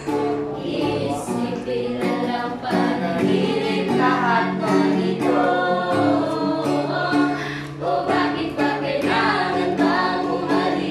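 Acoustic guitar strummed under singing, with a group of voices singing along.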